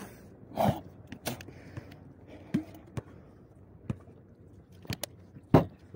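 A basketball bouncing on a hard outdoor court: several scattered sharp thuds, the loudest near the end.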